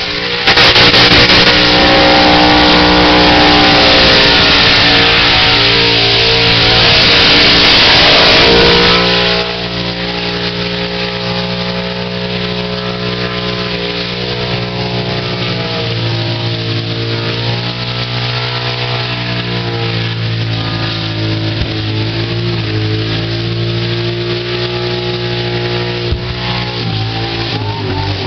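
A burnout car's engine held at high revs with its tyres spinning, loud enough to distort, for about the first nine seconds. The revs then drop sharply and the engine runs on at lower revs, rising and falling a little.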